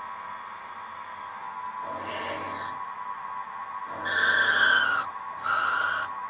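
Milling cutter on a Sieg SX2P mini mill cutting the corners off a small model steam-engine crosshead, played at four times speed. A steady high motor whine runs throughout. Three short, high, squealing cuts come about two, four and five and a half seconds in, the middle one the longest and loudest.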